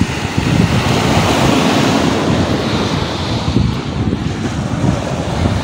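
Wind buffeting the phone's microphone: a loud, steady rush with a ragged low rumble.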